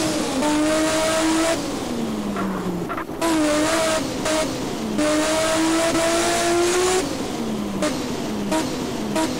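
Turbocharged Toyota 2JZ straight-six engine revving: revs held high for a second or two at a time, falling away in between, several times over.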